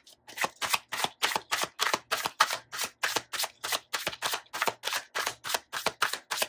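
A deck of large tarot-style cards being overhand-shuffled by hand: a rapid, even run of crisp card slaps as small packets drop from hand to hand, about five a second.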